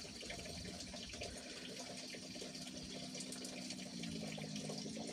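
Faint steady running water, like water flowing from a pipe into a basin, with a low steady hum beneath it.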